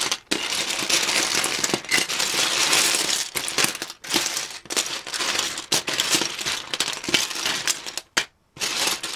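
Loose plastic Lego pieces clattering and rattling as a hand rummages through a box of them: a dense run of small clicks with short pauses near the middle and near the end.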